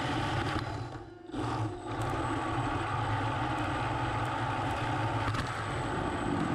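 3D-printed PLA RC mini tank driving, with its brushless motors running and its belt-driven plastic tracks rolling over the concrete floor and up onto a plywood ramp, picked up close by a camera mounted on the tank. The drive sound drops out briefly about a second in, then runs on steadily.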